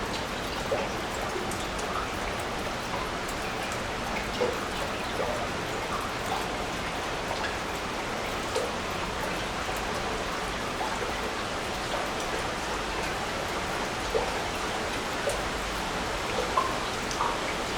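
Meltwater dripping and plopping at irregular moments from the ice of a frozen waterfall, over a steady rush of water.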